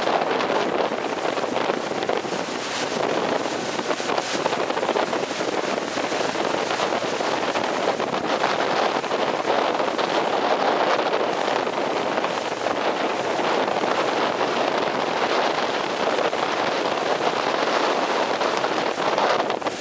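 Wind buffeting the microphone over the rush of choppy water and spray, steady throughout.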